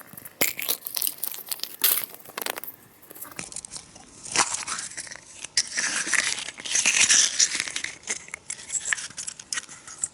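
A wrapper being crinkled and torn open by hand, in irregular bursts of crackling, with an edit about a third of the way in.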